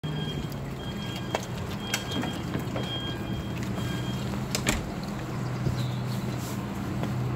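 Bin truck engine running steadily nearby, with four high beeps about once a second from its warning alarm that stop about halfway through, and a few sharp knocks.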